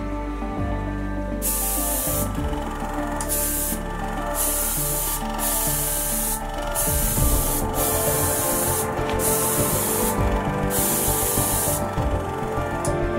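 Gravity-feed airbrush spraying paint onto a fishing-rod blank in about nine short bursts of hiss, each around a second long, starting about a second and a half in. Background music plays underneath.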